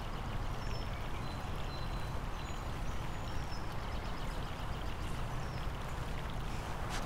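Outdoor ambience: a steady wash of background noise with small birds chirping here and there. A sharp click comes at the very end.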